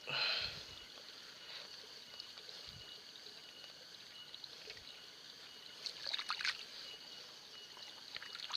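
Shallow water trickling and splashing as aquatic plants are handled in a paddy, with a brief cluster of louder splashes or rustles about six seconds in. A faint steady high-pitched hum runs underneath.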